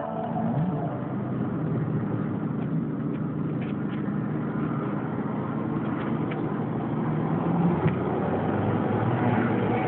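Car engine idling, heard from inside the cabin while the car stands still, with steady street traffic noise around it.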